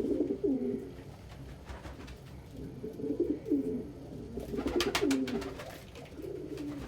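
Domestic pigeons cooing in two low, warbling bouts, one in the first second and another from about three to five seconds in. A short burst of clicking rustles comes near the end of the second bout.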